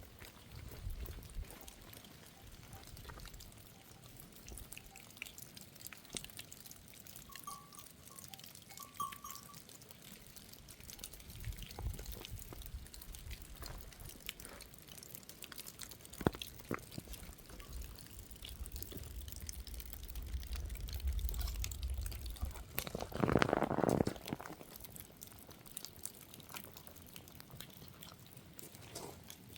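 Water dripping and trickling in the rain, with scattered sharp drips over a low rumble, and a louder burst of sound for about a second near 23 seconds in.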